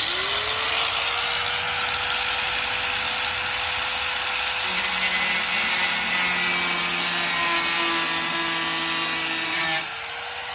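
Cordless power drill-driver spinning up to speed and running hard for nearly ten seconds, used to back out the car's front bumper fasteners. A lower tone joins about halfway in as the tool takes load, then it cuts off near the end and the motor winds down.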